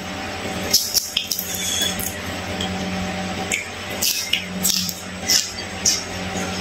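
Eating a whole fried fish by hand: fingers pulling at the crisp flesh, then chewing with short wet mouth clicks and smacks every second or so, over a steady low hum.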